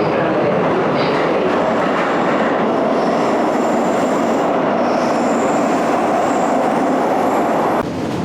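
Bucharest Metro train running on the track: a steady, loud rolling noise, with faint high wheel squeals in the middle. The sound drops suddenly near the end.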